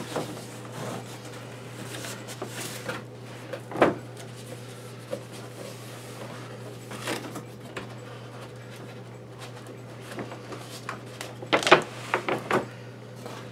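Cardboard retail box being handled: flaps opened and cardboard rustling and scraping, with a few short knocks and a louder cluster of them near the end, over a low steady hum.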